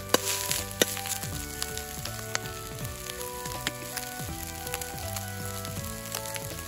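Fried rice stir-frying in a Chinese wok over a high-heat campfire: steady sizzling broken by sharp clicks, two of them loud in the first second. Background music with changing held notes plays underneath.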